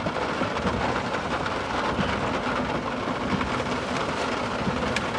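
Steady rain falling on a truck, heard from inside the cab, with light scattered ticks of drops.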